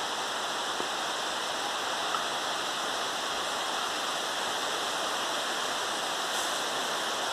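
Steady rainfall, an even unbroken hiss.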